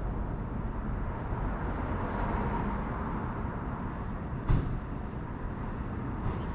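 Steady low outdoor rumble, with a single sharp knock about four and a half seconds in.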